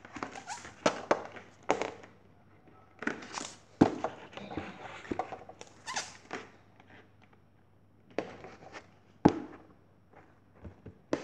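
A board being handled by hand, lifted and set back down: irregular knocks and clacks with patches of rustling and a few sharp taps, the loudest about four seconds in and again near nine seconds.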